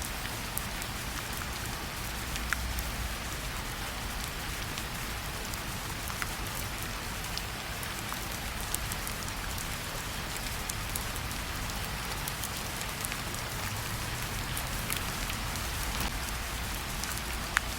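Steady rain falling, with many small sharp drop ticks scattered through it.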